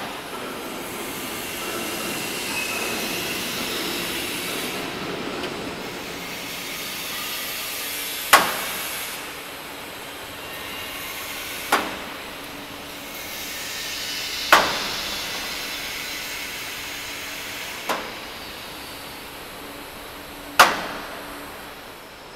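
Gear-driven roll forming machine running steadily as sheet steel feeds through its roller stations. From about eight seconds in there is a sharp, ringing metal clank every three seconds or so, five in all.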